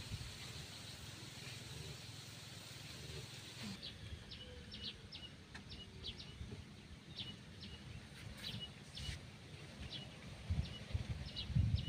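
A small bird gives short, sharp chirps that drop quickly in pitch, repeated irregularly from about four seconds in, over a steady hiss. Low rumbling comes up near the end.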